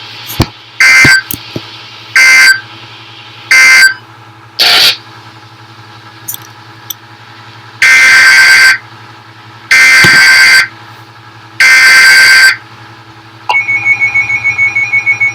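Emergency Alert System SAME data bursts over weather radio: four short, shrill, buzzing bursts, then after a pause three longer bursts of the next alert's coded header. About 13.5 seconds in, a loud pulsing alert attention tone starts.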